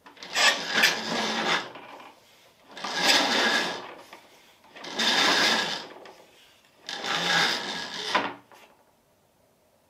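Window roller shutter being raised by hand in four pulls, each a rattling run of about a second and a half, ending with a click.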